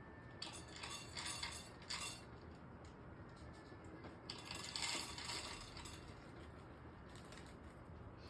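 Light clinking and rattling of small hard objects, in a cluster of quick clinks about half a second in and another around four to six seconds in.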